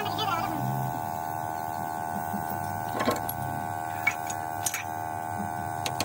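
A steady hum made of several level tones, with about four sharp metal clinks spread over the second half as a hammer and punch are handled against the steel final-drive gear hub of a road roller.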